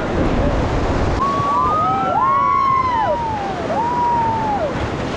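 Rushing whitewater of a river rapid, with several overlapping rising-and-falling whoops or shrieks from people on the raft.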